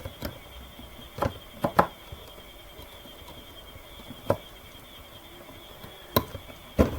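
Scattered sharp clicks and knocks of a USB microphone and its cable being handled and the cable plugged in, about six separate taps spread over several seconds, over a faint steady high whine.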